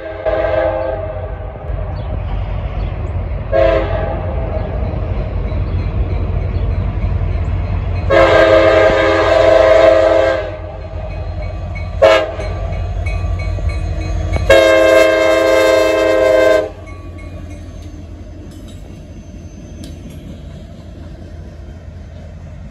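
Diesel locomotive air horn of a CSX SD70AC sounding a series of blasts for a grade crossing: short toots and two long blasts of about two seconds each. The locomotive's low rumble runs beneath and drops off after the second long blast, leaving a quieter passing train.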